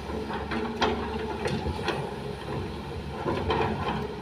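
Soil and stones from an excavator bucket dropping into a small dump truck's bed: a scatter of sharp knocks and clunks, over the steady drone of the Kobelco excavator's engine.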